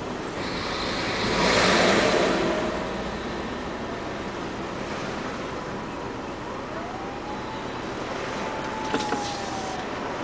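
Road traffic heard from a car standing in a queue: a heavy truck passes close by, its noise swelling loudly about two seconds in and then easing off into a steady traffic hum. Later a faint tone glides up and holds for a few seconds, and there are two short clicks near the end.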